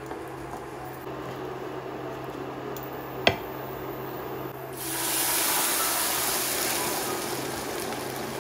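Bulgur toasting in oil in a nonstick frying pan, stirred with a wooden spoon, with one sharp knock about three seconds in. Then water goes into the hot pan and sets off a loud hissing sizzle that slowly dies down.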